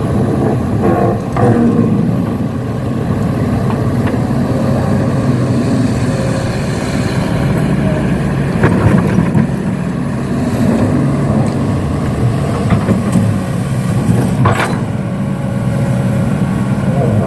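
Heavy vehicle's engine running steadily, with a couple of sharp knocks about nine and fourteen seconds in.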